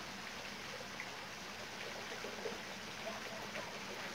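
Steady rush of running water by a fishing pond, with a faint low hum under it and scattered faint chirps.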